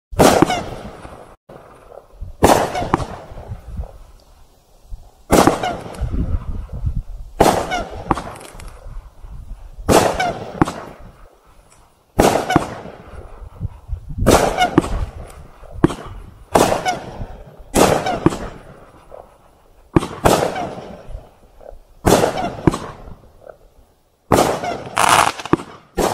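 A 500-gram consumer firework cake firing shot after shot: sharp bangs about every one to two seconds, some in quick pairs, each trailing off before the next.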